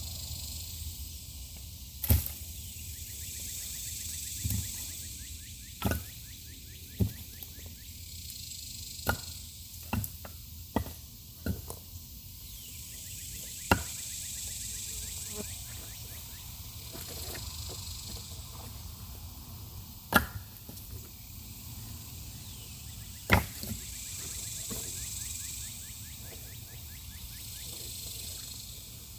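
Irregular sharp knocks and snaps, about a dozen, each brief and standing out plainly, over a faint high hiss that swells and fades every ten seconds or so.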